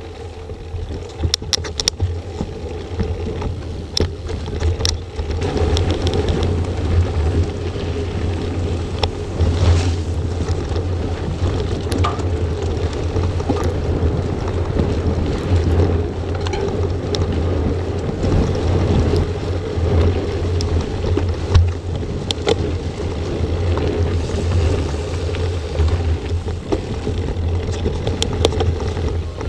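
Steady wind rumble on an action camera's microphone while riding a mountain bike over dirt and gravel trails. Tyre and trail noise run underneath, with scattered short clicks and rattles from the bike.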